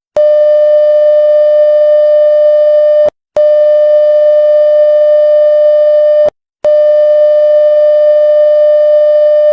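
Electronic emergency alert alarm tone: one loud, steady, buzzy tone sounding in three long blasts of about three seconds each, with a click at each start and stop and a short break between blasts.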